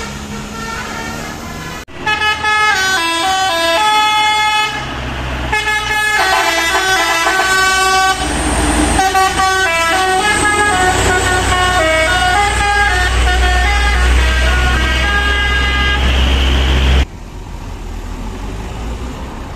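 A multi-trumpet musical air horn on a passing decorated minibus plays a tune of stepping notes from about two seconds in, with the bus's engine running loudly under it. Near the end it cuts to quieter road traffic.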